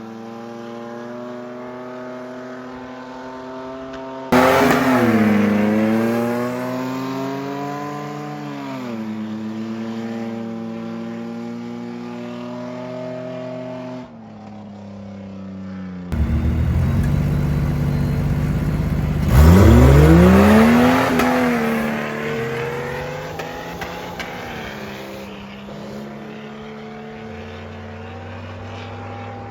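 Drag-racing 4x4 engines running steadily, then revving hard twice: a sudden loud burst about four seconds in, and a longer, louder one from about sixteen seconds with the pitch sweeping up steeply before it falls away. The engines then settle back to a steady run.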